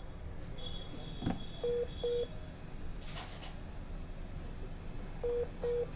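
Phone speaker giving short double beeps, two pairs a few seconds apart. A thin high whine sounds for about two seconds between the first beeps and the start.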